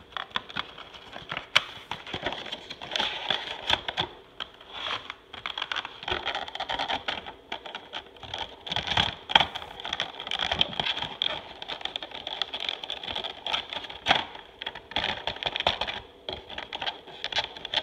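Stiff clear-plastic packaging tray being slid out of a cardboard box and handled: irregular clicking, crackling and rustling, with sharper clicks every second or so.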